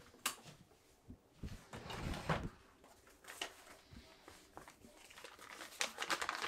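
Hands handling paper, with small knocks and clicks: a longer rustle about two seconds in and a quick run of clicks near the end.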